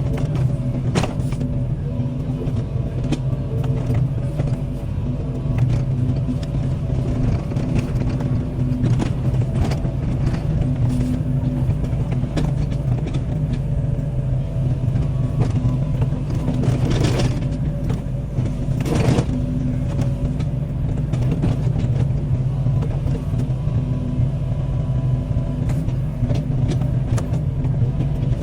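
Excavator's diesel engine running steadily under load, with a few sharp cracks about a second in and twice more a little past the middle.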